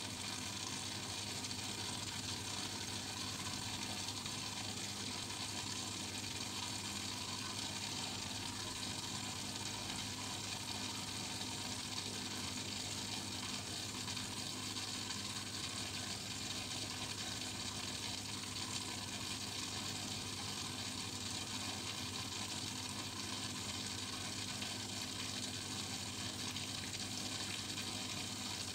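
Home aquarium water and aeration running: a steady hiss of bubbling, trickling water with a low steady hum underneath.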